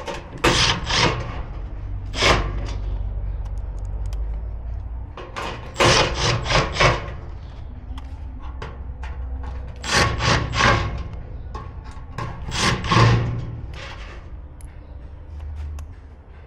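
Repeated rough scraping and rubbing strokes, coming in short quick runs of two to five with pauses between, as grill parts are handled and fitted during assembly, over a low rumble.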